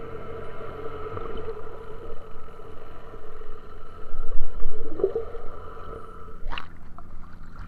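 Fishing boat's engine running with a steady drone over rumbling water and motion noise; the drone cuts off suddenly about six and a half seconds in, with a short sharp knock.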